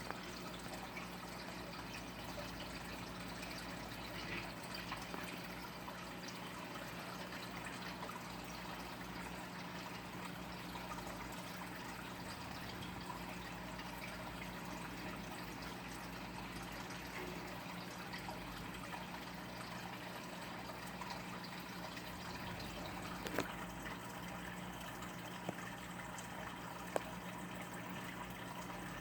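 Steady rushing noise with a constant low hum, and a few faint clicks near the end.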